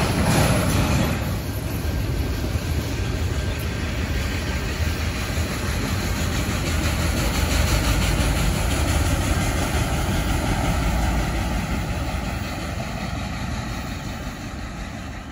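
Freight train of autorack cars rolling past, a steady running noise that fades near the end as the train moves away.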